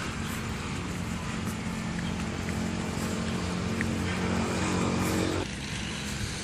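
A motor engine running with a steady low hum that grows a little louder, then cuts off abruptly about five seconds in.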